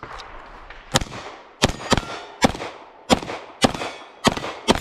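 A timed string of about eight gunshots fired at a steady pace, roughly one every half second, the first about a second in. It is a shooter engaging steel plates in a Steel Challenge stage after the shot timer's start beep.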